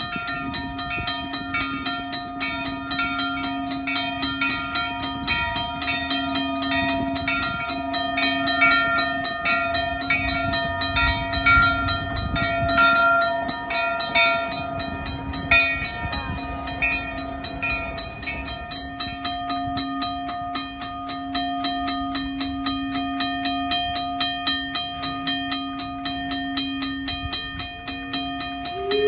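Grade-crossing bell ringing rapidly and steadily as the Virginia & Truckee 4-4-0 steam locomotive Inyo passes. The locomotive's low running rumble swells around the middle as it goes by close and then fades.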